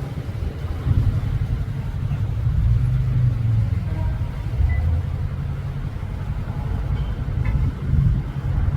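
A steady low rumble, loudest in the bass and wavering in level throughout.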